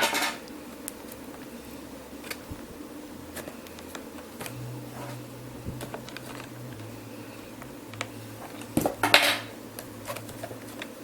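Ford Mustang inner door-panel trim being pried at to free its retaining clips: a brief clatter at the start, scattered light clicks, and a louder clattering burst about nine seconds in.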